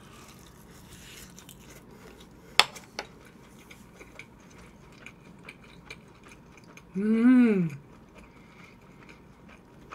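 Quiet chewing of a large mouthful of stir-fried food wrapped in greens, with a sharp click about two and a half seconds in. Near the end comes one closed-mouth 'mmm' that rises and falls, hummed through the full mouth.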